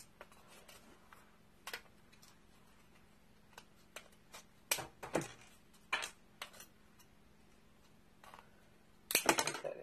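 Pliers clicking and snipping through a thin picture-frame strip: a few sharp clicks scattered through, with the loudest cluster of snaps near the end as the cut goes through.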